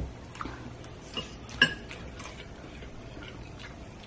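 Fork and chopsticks clicking against ceramic noodle bowls: a handful of short, sharp clinks while eating, the loudest about a second and a half in.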